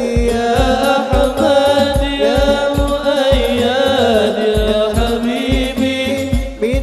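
Sholawat devotional song: a voice singing a sliding, ornamented melody over hadroh drums, with a low drum hit about twice a second.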